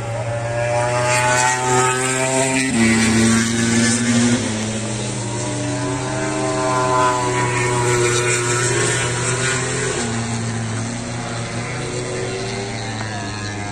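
MotoGP racing motorcycles passing on the circuit at speed. The engine pitch climbs, drops sharply about three seconds in, then rises and falls again in long sweeps as the bikes accelerate and go by.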